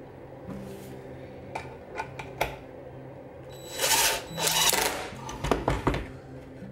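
Cordless drill driving a deck screw into wood in two short runs of about half a second each, with a few sharp clicks and knocks before and after.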